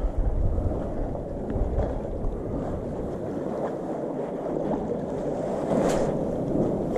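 Wind buffeting the microphone over a steady wash of sea water, with rumbling gusts in the first couple of seconds.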